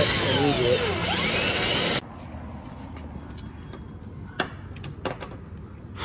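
Cordless drill with a step bit running and cutting through a fiberglass side-skirt panel, its whine rising and falling, then stopping abruptly about two seconds in. A few light clicks follow.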